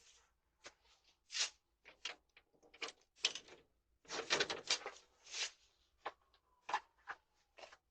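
Irregular clicks, knocks and rattles of someone trying to get through a locked door, about fifteen short sounds over several seconds, heard through a doorbell camera's microphone.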